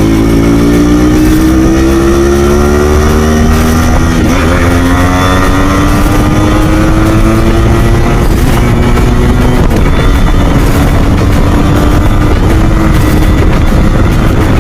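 Yamaha RX two-stroke motorcycle engine running loudly, its pitch climbing gradually through the first eight seconds or so as it accelerates, then holding steady.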